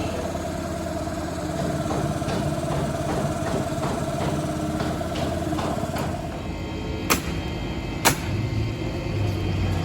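An engine running steadily, with a held mid-pitched tone that fades out about six and a half seconds in. Two sharp knocks, about a second apart, come near the end.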